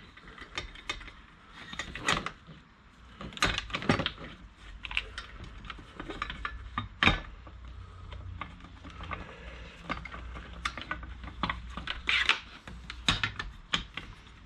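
Metal sockets and hand tools clinking and clicking against each other and the plastic tray of a socket-set case as sockets and a ratchet are picked out, in irregular knocks and rattles.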